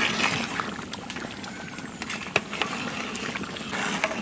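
Bottle gourd and shrimp curry simmering and bubbling in a large aluminium pot, with a few sharp clicks, the loudest a little past the middle.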